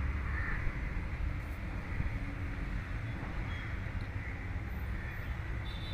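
Steady low rumble of vehicle engines, with no sudden events.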